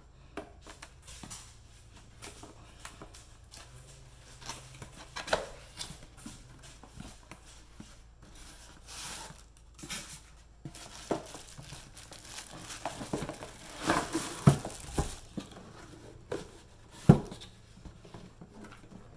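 Unboxing an appliance: cardboard flaps and inserts handled and a plastic-bagged waffle maker pulled from its box, with rustling and crinkling of plastic and cardboard and scattered scrapes and knocks on the countertop, the sharpest knock near the end.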